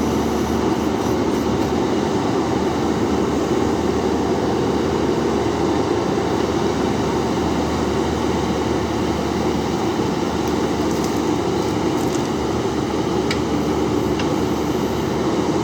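JCB backhoe loader's diesel engine running steadily under load, a constant low hum with heavy mechanical noise and no change in speed.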